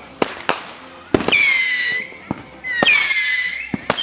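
Consumer fireworks going off: several sharp pops and cracks, and two long shrill whistles about a second each, each dropping slightly in pitch, with a third whistle starting near the end.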